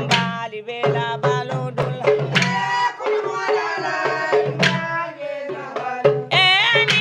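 Music: a wavering melodic line over drums, with sharp drum strokes throughout.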